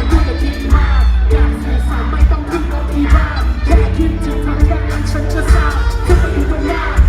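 Live pop song with a band and singing, recorded from the audience, with heavy bass throughout.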